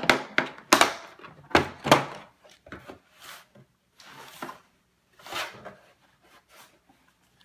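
Hard plastic tool carrying case unlatched and opened on a wooden table: a run of sharp clicks and knocks from the latches and case in the first two seconds, then softer knocks and rustling as the lid is lifted and the contents shifted.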